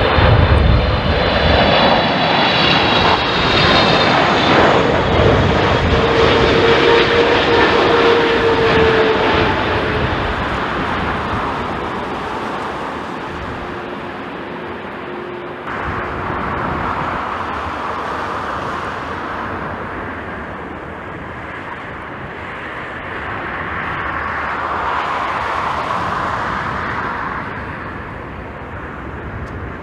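Jet airliner engines passing close and loud, with a high fan whine at first, then fading away over several seconds. After an abrupt change about halfway through, a more distant jet rumble swells and fades again.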